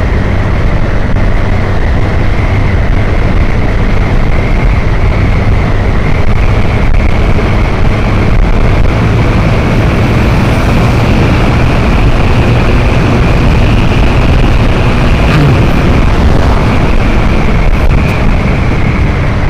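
Motorcycle riding along at steady speed: wind rushing loud and steady over the microphone, with the engine and road noise underneath.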